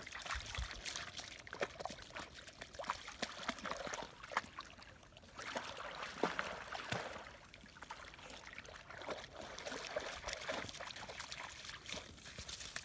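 A dog wading in shallow river water, its legs making small, irregular splashes and trickling sounds as it moves.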